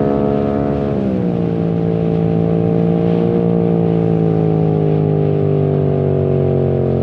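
2021 Yamaha MT-07's parallel-twin engine running through a full titanium exhaust with no dB killer. The revs drop sharply about a second in, then hold nearly steady and slowly sink.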